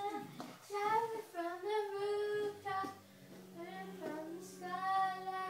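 A high-pitched voice singing a few held, sliding notes.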